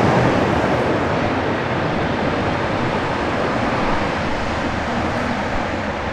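Steady urban background rumble of passing traffic and trains, loudest at the start and easing off a little after about a second.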